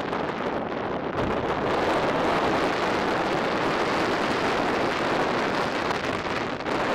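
Steady rush of wind over the microphone at high speed, mixed with the roll of wheels on asphalt, getting louder about a second in and then holding.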